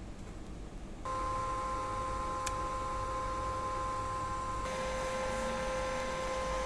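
Frequency inverter drive switching on and running with a steady electrical whine made of several fixed tones, starting abruptly about a second in. A hiss joins about two-thirds of the way through.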